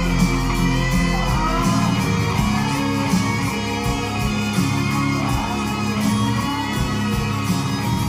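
Guitar music played through a pair of Klipsch RP-280F floorstanding speakers in Pure Direct mode, with strong, steady bass.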